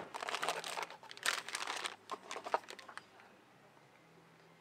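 Crinkling of a small resealable plastic bag and packaging as it is taken out of a box, a dense run of crackles for about three seconds, then it stops.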